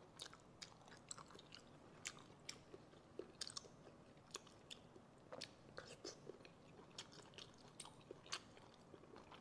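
Faint close-up eating sounds: chewing and scattered, irregular wet clicks as braised snails are picked from their shells and eaten.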